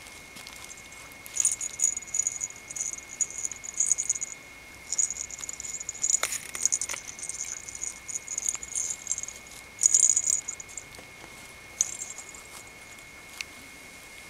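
Mame shiba puppy moving about: light, scratchy pattering and rattling of paws and claws in irregular bursts with short pauses. A faint steady high tone runs underneath.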